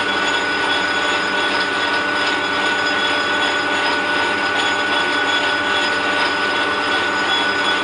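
Metal-working lathe running at a steady speed with a constant whine, while a 4 mm twist drill in the tailstock chuck bores through a spinning PVC workpiece.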